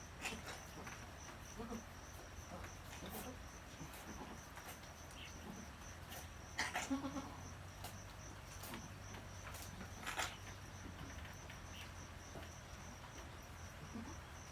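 Insects chirping in a steady, evenly pulsing high trill, with a few faint clicks and knocks; the loudest knocks come about seven seconds in and again about three seconds later.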